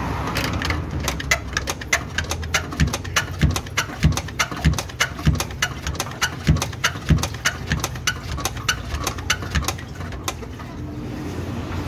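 Fast, even run of sharp clicks and knocks from a Ford Ka's worn rear axle bushing as the play in it is worked with the car on its wheels, over a low steady hum. The clicking stops about ten seconds in. It is the sign of a loose rear axle bushing, which gives the toque-toque knock from the rear when driving.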